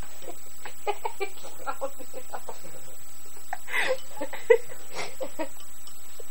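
A man eating cereal from a bowl held close to his face: a run of short, irregular crunching and smacking mouth sounds, with one sharp click about four and a half seconds in.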